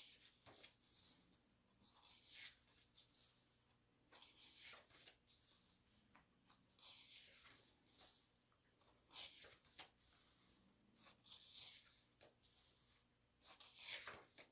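Faint rustling and swishing of glossy photo book pages being turned and smoothed by hand, several short brushes at irregular intervals.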